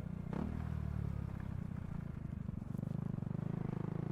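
Motorcycle engine running steadily while riding, with an even low throb of firing pulses.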